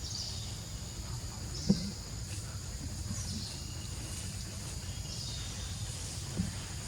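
Outdoor ambience: a steady low rumble with faint high chirps repeating about every second and a half, and a sharp knock about two seconds in with a softer one near the end.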